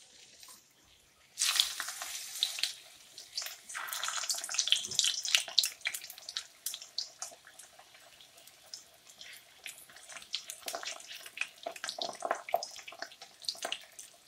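Chicken samosas going into hot oil: a sudden loud sizzle about a second and a half in, surging again about four seconds in, then settling into a steady crackle and spatter of deep-frying.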